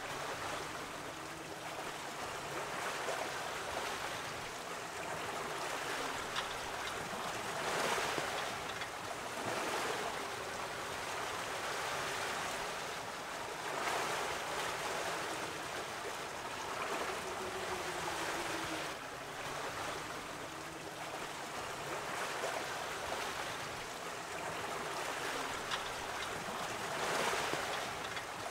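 Sea water rushing and splashing past the hull of an 11 m sailboat under way in rough seas: a steady wash that swells louder every few seconds as waves go by.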